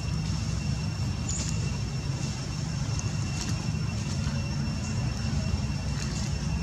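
Steady low background rumble with a thin, steady high-pitched whine over it and a few faint ticks.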